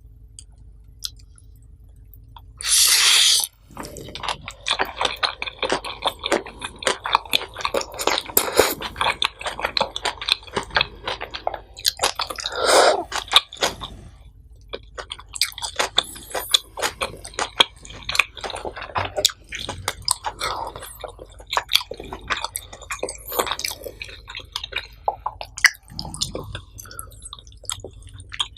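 Close-miked chewing of nasi pecel, rice and vegetables in peanut sauce: continuous wet mouth clicks, squishes and small crunches. A short, loud hissing rustle comes about three seconds in, before the chewing starts.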